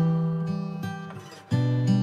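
Background music: strummed acoustic guitar. A chord rings and fades, and a new chord is struck about one and a half seconds in.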